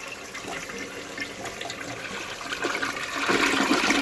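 Toilet flushing through a newly replaced flush valve and flapper: water rushing, swelling louder near the end.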